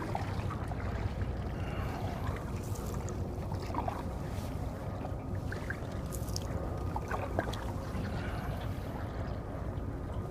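Canoe being paddled on calm water: scattered small splashes and knocks of the paddle against water and hull over a steady low rumble.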